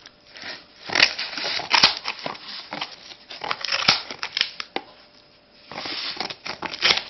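Scissors cutting through a shipping box, crackling and snapping in two bouts: a long one starting about a second in and a shorter one near the end.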